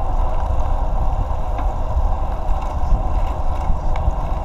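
Steady wind rumble on the camera's microphone while cycling along a paved trail, mixed with tyre and road noise.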